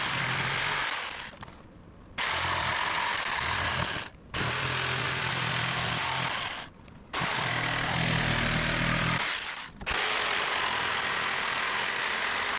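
A handheld power tool running on a workpiece in five runs of about two seconds each, starting and stopping abruptly with short breaks between them.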